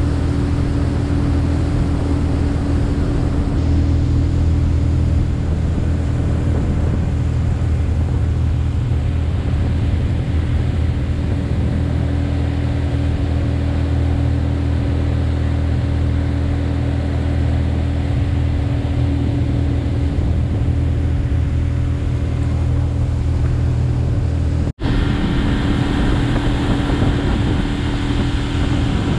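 Boat outboard motor running steadily. After a brief cut near the end the boat is under way at speed, with rushing water and wind over the engine.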